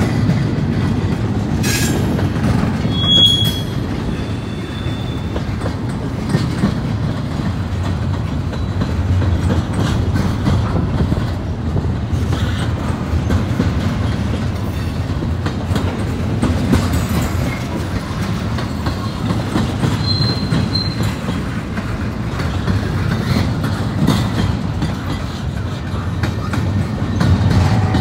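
Double-stack intermodal well cars of a long freight train rolling past on the rails: a steady rumble with wheel clatter. Short high wheel squeals come about three seconds in and again near twenty seconds.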